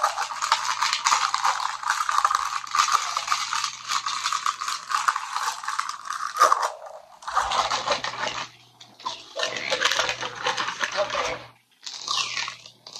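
Paper and plastic packaging crinkling and rustling as a small salt lamp is unwrapped by hand. The crinkling is continuous at first and breaks into shorter bursts with brief pauses in the second half, over a faint low hum.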